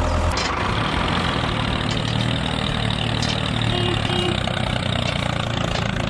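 Tractor engine running steadily, with no change in pace.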